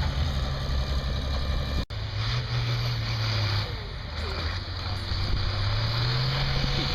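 An engine running steadily, cut off by an edit about two seconds in; after it a low engine hum dips in pitch and then rises again.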